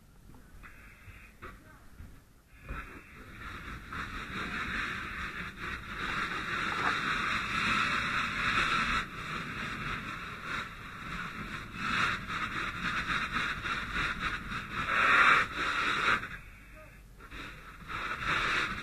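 Steady rushing hiss of a fire hose nozzle flowing water during interior firefighting, starting a few seconds in, cutting out briefly near the end and then opening again.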